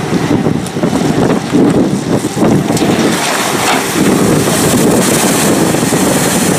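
Amphibious tour bus driving down a ramp into a river, its engine running under heavy wind noise on the microphone, with a rushing splash of water in the second half as it ploughs in.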